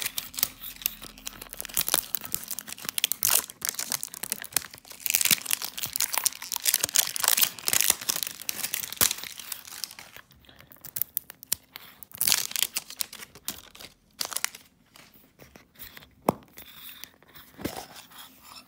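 Plastic wrapping torn and crinkled off a metal Poké Ball tin, dense crackling for about ten seconds. Then sparser rustles and clicks as the tin is handled and pulled open, with one sharp click near the end.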